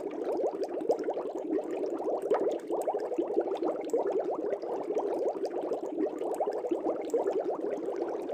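Air bubbles streaming through fish-tank water: a continuous, even bubbling made of many small, quick blips a second, with no pauses.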